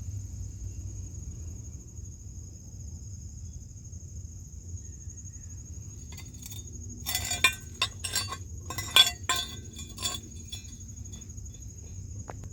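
Crickets trilling steadily in a high, thin, unbroken tone over a low outdoor rumble, with a cluster of sharp clinks and knocks about seven to ten seconds in.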